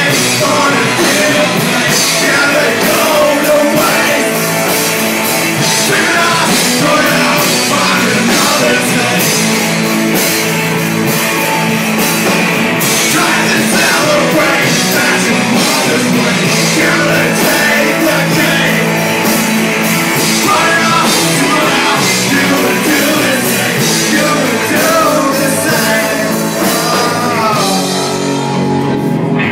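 Live rock band playing loud: electric guitars, bass and drums with a singer shouting into the mic.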